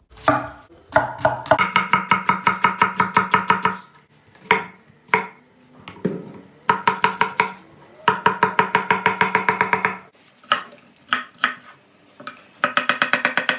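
Chef's knife rapidly chopping potatoes and carrots on a wooden end-grain cutting board: quick runs of about eight strokes a second, broken by short pauses and a few single knocks.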